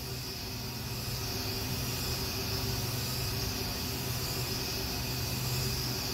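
Haas VF-2 CNC vertical mill's spindle running while an end mill cuts a circular pocket in machinable wax, dry with no coolant. It is a steady, even machining sound with a low hum and a high hiss.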